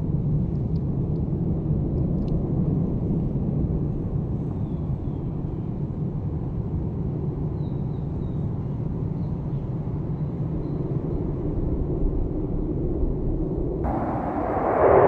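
F-15 Eagle fighter jet's twin turbofan engines: a steady, deep rumble as the jet passes. About a second before the end it turns abruptly to a louder, brighter roar.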